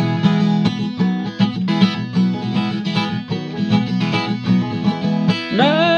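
Viola caipira playing an instrumental break: a quick run of plucked notes over a steady low accompaniment. A man's singing voice comes in near the end.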